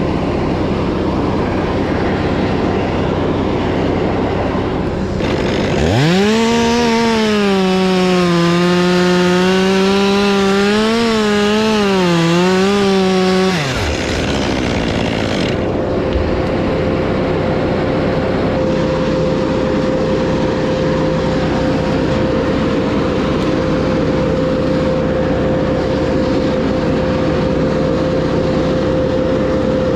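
Top-handle chainsaw revving up and cutting into a limb for about seven seconds, its pitch wavering and dipping as the chain loads in the wood, then cutting off suddenly. A steady engine runs underneath throughout, and a steady hum joins it about halfway through.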